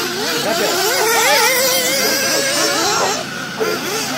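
Several radio-controlled off-road cars' small engines racing around a dirt track, their high whines overlapping and rising and falling quickly as they rev and back off.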